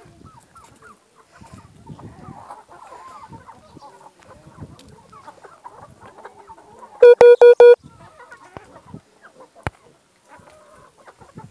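Chickens clucking softly. About two-thirds of the way through, four rapid, loud, identical beeps of one steady tone cut in, the loudest sound here. A single sharp click follows a couple of seconds later.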